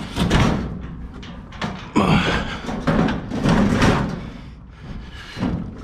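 Sheet-metal bangs and clanks, four or so in a few seconds, with a short scrape about two seconds in, from a discarded clothes dryer being handled on a trailer.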